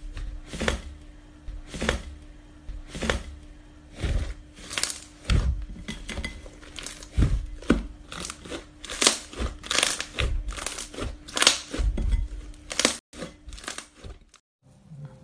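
Slime being squeezed and pressed by hand, giving irregular sharp pops and crackles, over a faint steady hum.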